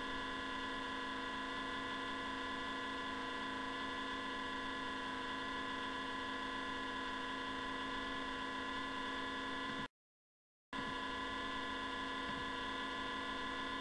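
A steady, unchanging drone of many held tones, cutting out completely for about a second, about ten seconds in.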